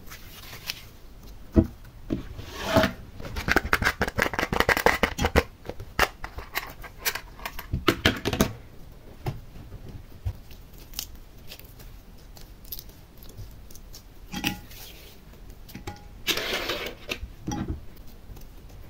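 Slime being stretched, folded and squeezed by hand, giving clusters of quick sticky crackling clicks, with quieter stretches in between.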